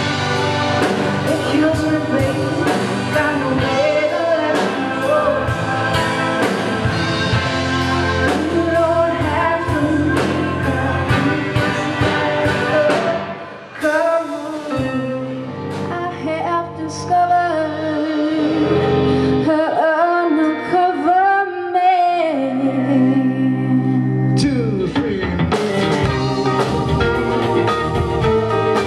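Live rock band playing: electric and acoustic guitars, keyboard and drum kit, with a woman singing. About halfway through the drums drop out for a sparser passage of voice and guitar, and the full band comes back in near the end.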